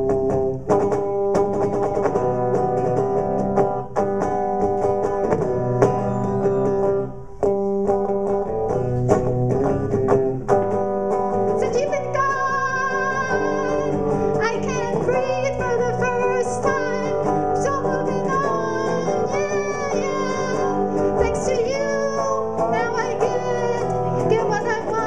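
Live electric guitar playing, and from about halfway through a woman's singing voice joins it.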